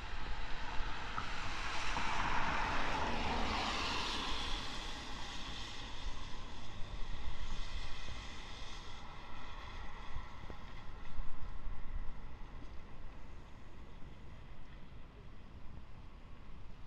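Distant running noise of a JR 205-series electric train as it pulls away, fading after the first few seconds, with wind buffeting the microphone.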